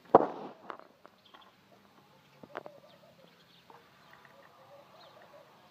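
A sharp knock just after the start, then a few light metal clicks as nuts and washers are fitted by hand onto the studs of an electric water heater's element flange. Faint bird calls near the end.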